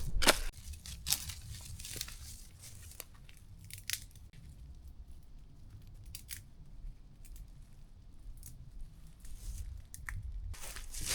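Camp gear being handled: scattered rustling and crinkling, with a few sharp snaps in the first second, over a low rumble.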